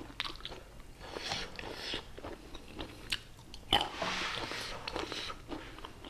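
Close-up mouth sounds of a person biting and chewing crunchy fresh fruit: short crisp crunches and smacks, with one louder crunch a little past halfway.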